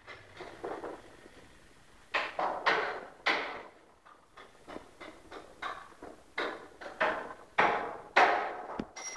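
Footsteps on a bare floor in an empty room: about a dozen sharp, irregular steps with echo.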